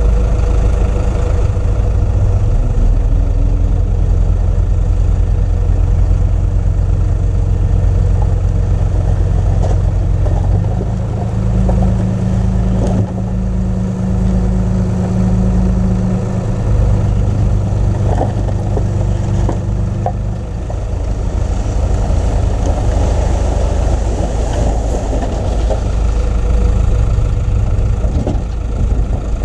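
Engines of a small bulldozer and dump trucks running steadily. The engine note changes about a third of the way in and again about two-thirds in, with a few short clanks along the way.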